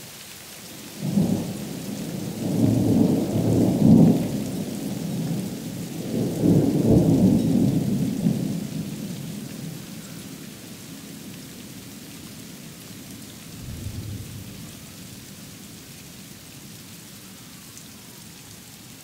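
Thunder rolling through a sleet storm: a long low rumble begins about a second in, swells twice and dies away, with a fainter rumble later. Under it, a steady hiss of sleet falling.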